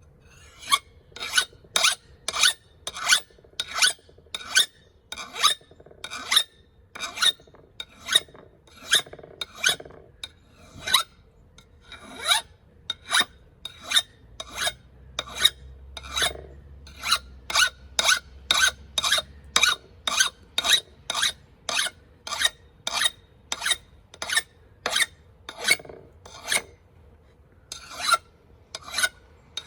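Steel hand file rasping along a steel axe edge in short, regular strokes, about two a second, with a brief pause near the end. The filing takes out nicks in the edge and raises a burr.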